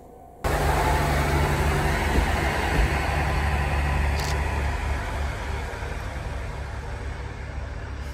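KiHa 48 diesel railcar train pulling away with its diesel engines running as a steady low drone, which slowly fades as it recedes. A brief hiss comes about four seconds in.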